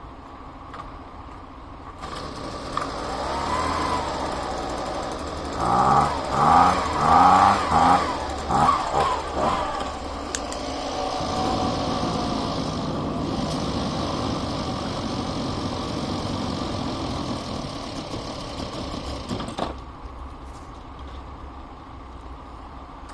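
Husqvarna handheld leaf blower's two-stroke engine running, revved in a quick series of rising bursts, then running steadily until it cuts off suddenly a few seconds before the end.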